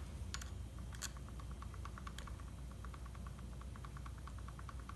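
Traxxas Revo 3.3 nitro's 40-tooth spur gear and 14-tooth clutch bell turned by hand, the teeth ticking lightly in a quick, even rhythm of about eight clicks a second: the sound of a gear mesh set with the right amount of play.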